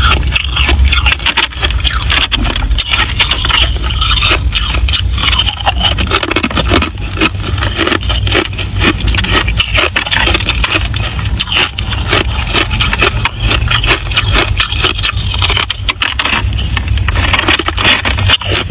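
Crushed ice being chewed close to the microphone: a rapid, continuous run of crisp crunches and crackles, over a steady low rumble.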